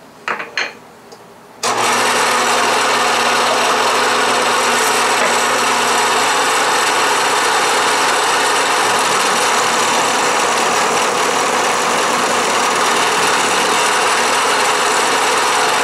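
A few short clicks, then a Bridgeport milling machine starts up about a second and a half in and runs steadily while its end mill cuts a flat across a 1/4-inch water-hardening tool-steel drill rod, a constant loud hum and hiss of motor and cutting.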